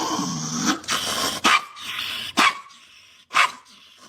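A dog barking: a few short barks about a second apart.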